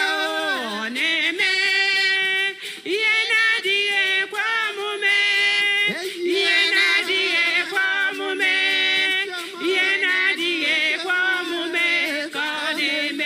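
Singing, with a woman's voice prominent and other voices beside it, holding long notes with a wavering vibrato.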